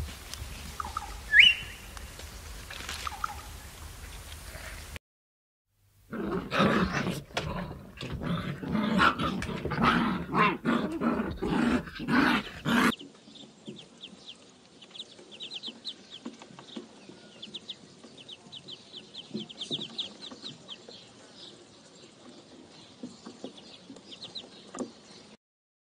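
A run of separate animal recordings. First comes faint outdoor sound with a few bird chirps. After a short break, about seven seconds of loud, repeated animal calls. Then ducklings peep softly and rapidly.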